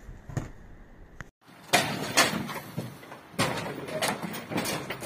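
Irregular knocks and metal clangs from the steel roof frame of a tent trailer being pushed loose with a wooden board. The sharpest bang comes about two seconds in.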